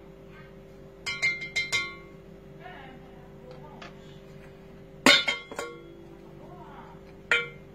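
Metal wire whisk clinking against a stainless-steel mixing bowl with ringing taps: a quick run of four about a second in, a louder cluster of three about five seconds in, and a single clink near the end.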